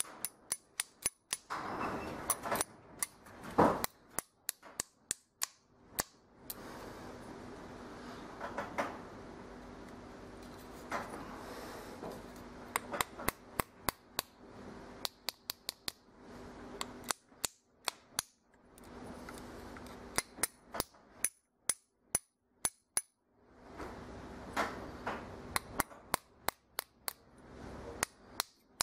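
Small ball-peen hammer lightly tapping a bearing housing into the metal can of a brushless RC helicopter motor. The taps are sharp and light, come in runs of several a second, and pause between runs.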